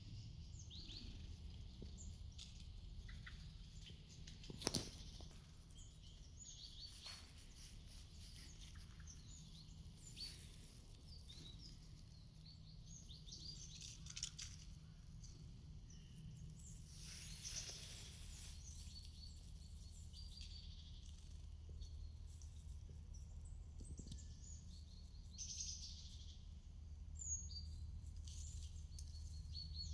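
Small songbirds chirping with short, high calls scattered throughout, over a steady low background rumble. A sharp click stands out about five seconds in, and a brief rush of noise comes around the middle.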